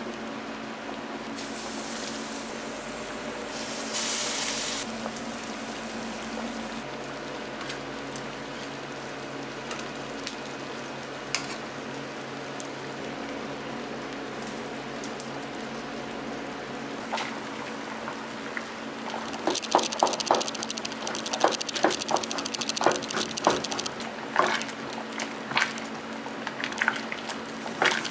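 Pot of tonkotsu pork-bone broth boiling hard over a steady low hum. From about two-thirds of the way through, loud irregular bubbling and popping as the broth churns.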